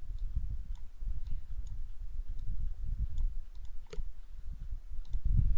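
Computer mouse clicking now and then while it is moved to paint with a brush tool, one click louder about four seconds in, over a low rumble.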